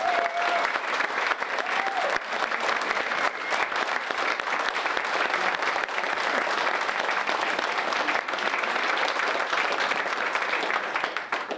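A roomful of people applauding, a dense, even clapping that dies away near the end.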